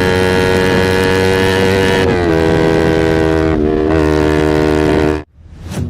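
Yamaha R25's parallel-twin engine with a Proliner aftermarket exhaust, held at high revs with a steady high-pitched note that dips slightly in pitch a couple of times. It cuts off abruptly near the end, and music starts.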